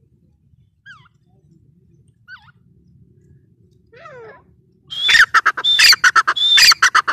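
Grey francolin (teetar) calling. A few faint short notes come first, then about five seconds in a loud, harsh run of rapid repeated notes with a high whistled tone, lasting about two and a half seconds.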